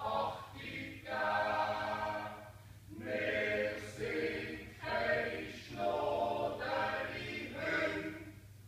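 Swiss yodel club choir, men's voices with one woman, singing a cappella in short held phrases with brief breaks; the last phrase dies away near the end.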